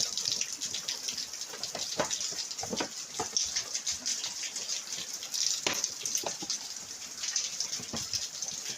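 Plastic scooter side fairing being pressed into place by hand, with scattered knocks and clicks as its clips are pushed in, over a steady hiss.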